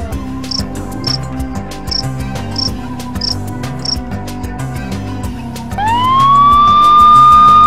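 Background music with a steady beat and regular ticks, with short high chirps about every half second early on; about six seconds in a police siren comes in, sweeping quickly up in pitch and then holding a steady high tone, louder than everything before it.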